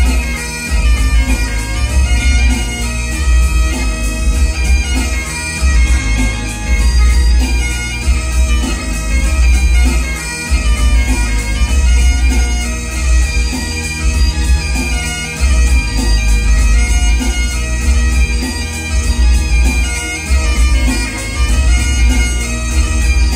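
Great Highland bagpipe played solo: steady drones under a running chanter melody. A heavy low rumble in the recording swells and drops with the phrases.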